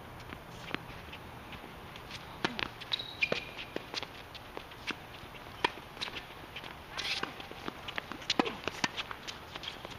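Tennis rally on an outdoor hard court: irregular sharp pops of rackets striking the ball and the ball bouncing, mixed with running footsteps and a brief shoe squeak about three seconds in.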